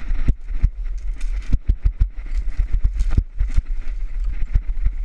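Dry sticks and brush in a driftwood pile crackling and snapping as they are pulled apart by hand, in irregular sharp snaps over a steady low rumble.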